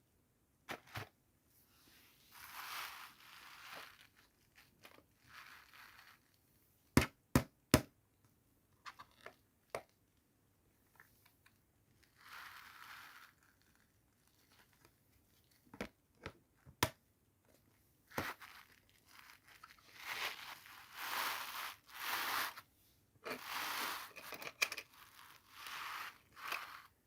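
Toy packaging being handled and opened: stretches of crinkling and tearing. Three sharp clicks come close together about seven seconds in, with a few more later.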